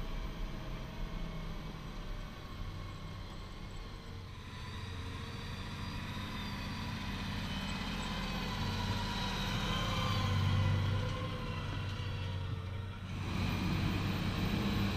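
Large farm tractor diesel engines (Fendt 828 Vario and Claas Axion 850) running under load as they drag land-levelling scrapers through soil, a steady low engine drone. The sound changes abruptly about four seconds in and again near the end, and it is loudest a little past the middle.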